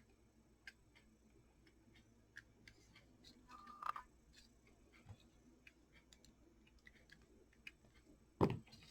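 Faint, irregular small clicks and taps of hands handling the paper clock face and clock parts, with a brief pitched squeak about four seconds in and one louder sudden sound near the end.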